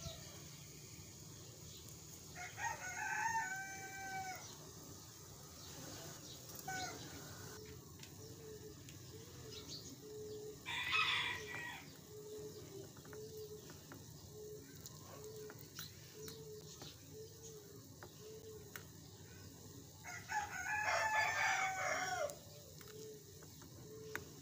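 A rooster crowing twice, a few seconds in and again near the end, with a short loud sound about halfway between. Beneath it runs a steady quiet hiss from oil frying pakoras in a small pan.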